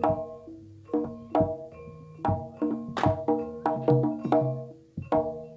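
Javanese gamelan music accompanying jaranan: bronze keyed and gong-chime instruments struck in a quick, uneven pattern of ringing notes, over drum strokes. There is a short lull about half a second in, and another pause near the end.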